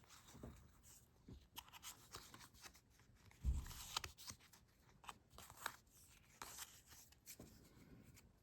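Faint rustling and crinkling of Pokémon trading cards and a foil booster pack being handled, with small clicks and a soft thump about three and a half seconds in.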